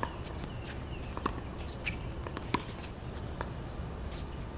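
Outdoor ambience at a tennis court between points: a steady low rumble with scattered light clicks and taps, the sharpest about two and a half seconds in.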